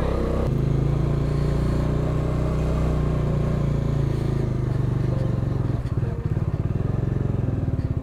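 Motorcycle engine running steadily as the bike rides along at low speed, heard from the rider's seat. About six seconds in, the note drops to a slower, pulsing beat.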